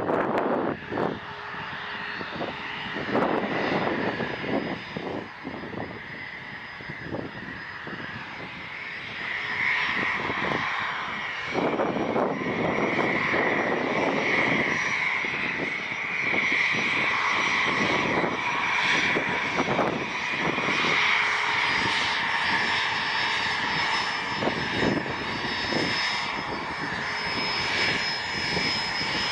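Airplane engines running with a steady whine, growing louder about a third of the way in and holding there.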